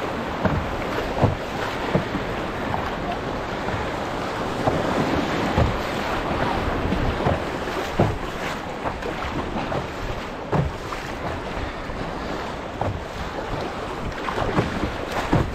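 Moving river water rushing around a solo canoe, with wind noise on the microphone. Short splashes and knocks from the wooden paddle's strokes come every second or two.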